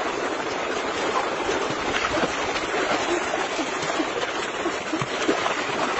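Shallow rocky stream running: a steady rush of water with small gurgles.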